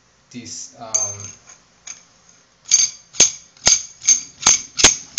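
Metal sink-drain parts clinking as they are handled: a run of about six sharp, ringing clinks, roughly two a second, in the second half.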